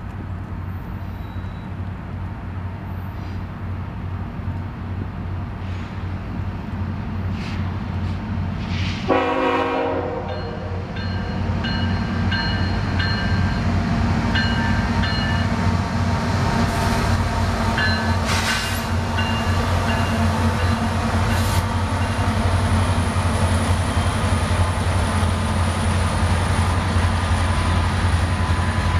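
A freight train's diesel-electric locomotives pull past with a steady low engine drone, and a short horn blast comes about nine seconds in. The sound grows louder as the locomotives and then the tank cars roll by, with short high squeals and a few clanks from the wheels and cars.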